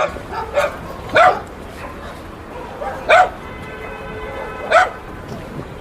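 A dog barking: about five short, loud barks spread irregularly, the strongest about a second in, around three seconds and near five seconds.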